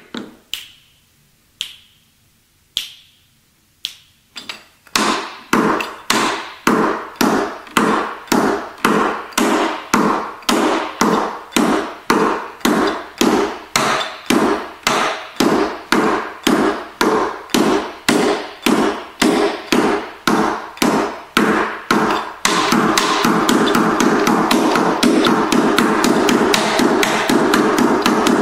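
Tap shoes striking a wooden practice board in a warm-up drill: a few single taps, then an even beat of taps about twice a second, breaking into a dense, fast run of taps about three quarters of the way in.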